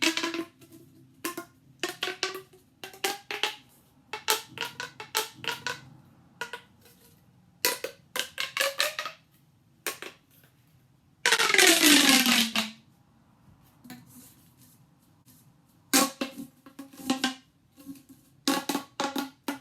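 Plastic fidget toys being handled and fiddled with: a run of irregular hard clicks and knocks, some with a short ringing note. About eleven seconds in comes a louder rasping sound of a second or so whose pitch falls.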